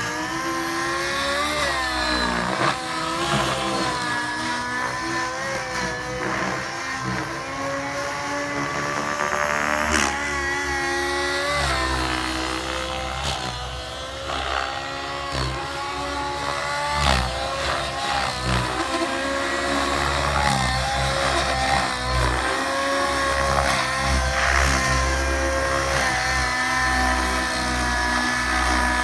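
Nitro-powered SAB Goblin 700 RC helicopter's glow engine running at high revs, with its rotor speed held by a Maxx FBL governor. The engine note rises and falls repeatedly as the helicopter manoeuvres, with a couple of sharp cracks about ten and seventeen seconds in.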